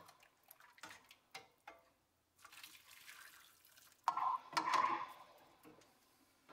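Faint clinks of a mesh strainer and glass measuring cup against a stainless steel stockpot, then, about four seconds in, a second or so of liquid splashing as chicken broth is scooped and poured.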